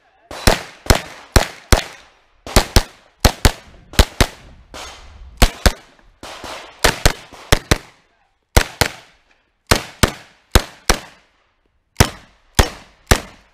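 Norinco 320 UZI-clone pistol-calibre carbine fired semi-automatically, about two dozen sharp shots mostly in quick pairs, with short pauses between the pairs as the shooter moves from target to target. Each shot has a brief ringing tail.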